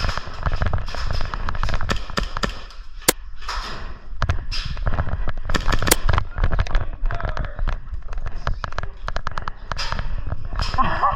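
Airsoft guns firing in an exchange of fire: many sharp cracks, some single shots and some in quick automatic runs. A short pitched call comes near the end.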